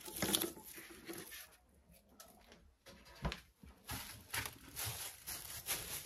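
Handling noises of eggs being gathered from a hen's nest: soft rustling with a few light knocks, the clearest about a third of a second in and just after three seconds.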